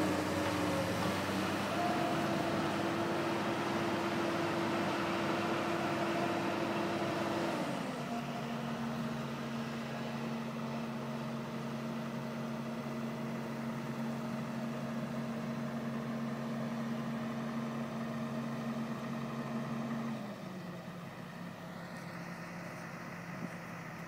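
Komatsu PC200-8 excavator's diesel engine running steadily, dropping to a lower speed about seven seconds in and settling down again near the end, quieter each time.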